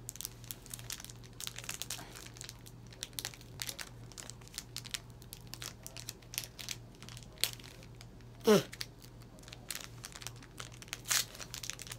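Foil Pokémon booster pack crinkling and crackling in the hands as it is worked at and hard to tear open. A short falling vocal sound comes about eight and a half seconds in.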